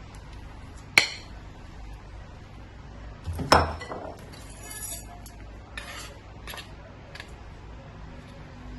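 Kitchen utensils and dishes clinking: a sharp clink about a second in, a louder clatter with a short ring about three and a half seconds in, then a few lighter clinks.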